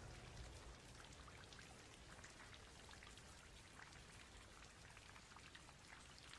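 Faint rain: a soft, even hiss with scattered drops ticking.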